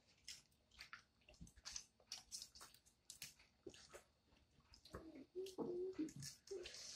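Faint eating sounds of Cajun boiled peanuts: wet shells cracked open and sucked, with chewing and lip smacks, heard as a string of small irregular clicks and crackles. About five seconds in, a short hummed voice sound.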